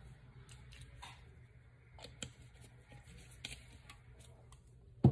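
Faint scattered clicks and crinkling from plastic-gloved hands handling a small bottle and its cardboard box, with one sharp knock near the end.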